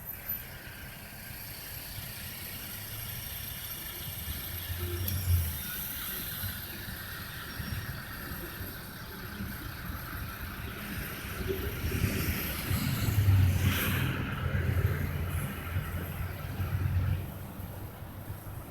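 Interstate highway traffic, with heavy trucks passing: low engine rumble and tyre noise swell as a truck goes by about five seconds in and again from about twelve to seventeen seconds, with a short sharp hiss or bang near the loudest point.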